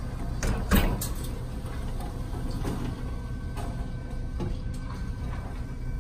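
Indoor range target carrier running, sending a paper target downrange along its overhead track: a steady low hum, with a few sharp knocks, the loudest about three quarters of a second in.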